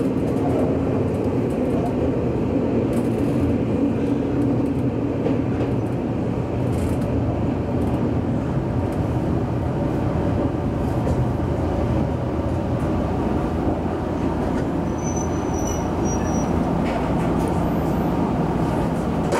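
Electric commuter train running on the track, heard from inside the front cab: a steady noise of wheels on rail with a low motor hum.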